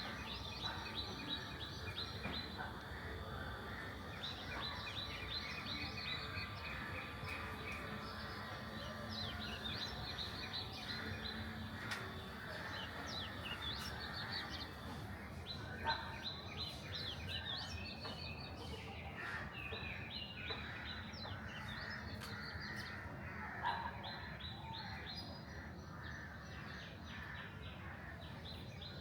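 Several different birds chirping: quick runs of short, high chirps that repeat throughout, over a steady low background noise.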